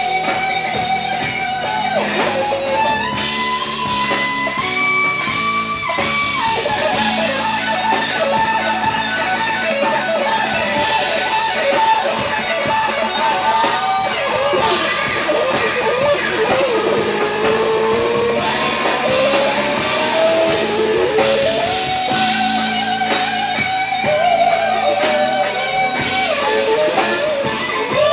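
Live band playing an instrumental passage: an electric guitar lead holds long notes and bends them, over strummed guitar and a drum kit.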